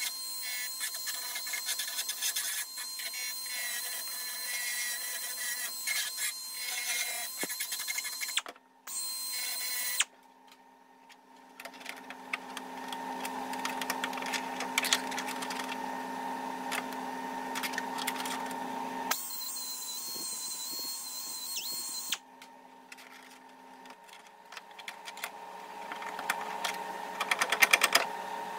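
A power tool running on sheet metal in several stretches that start and stop abruptly, with a steady hum, and a run of rapid clicking near the end.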